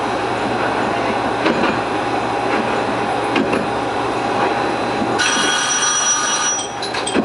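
Train running along the track, a steady rumble with occasional knocks from the wheels on the rail. About five seconds in, a bright ringing tone sounds for about a second and a half, then cuts off, followed by a few short pings.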